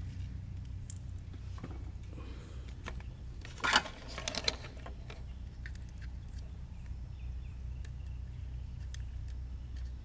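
Workbench handling noises over a steady low hum: one sharp knock a little under four seconds in, a few lighter clicks just after, and scattered faint ticks as a soldering iron and small parts are picked up and moved.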